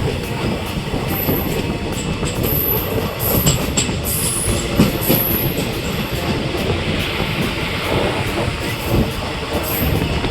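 Passenger train of ICF coaches running on the rails: a steady rumble with wheel clicks over the rail joints and a few brief high wheel squeals.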